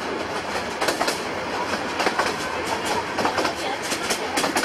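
Miniature railway carriage running along the track, its wheels clicking over the rail joints in an uneven clickety-clack over the steady rumble of the moving train.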